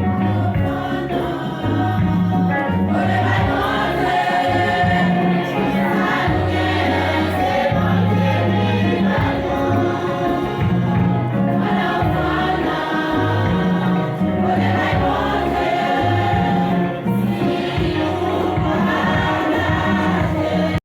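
Music: a choir singing over instrumental accompaniment with a repeating bass line, the voices coming in about three seconds in.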